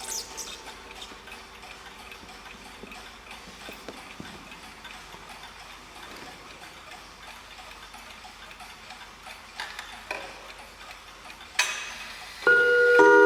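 Mechanical mantel clocks ticking, with the ring of an earlier strike dying away in the first few seconds. Near the end a sharp strike rings out, and then a clock starts chiming loudly, its gong or chime rods ringing on.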